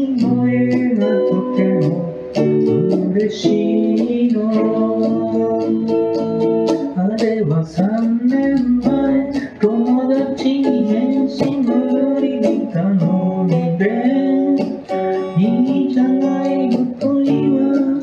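A woman singing a slow song, accompanying herself on a small plucked guitar, with short pauses between sung phrases.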